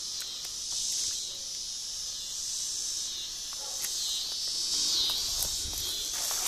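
Chorus of singing insects, a steady high shrill that swells and fades, with footsteps crunching through grass and leaves from about four seconds in.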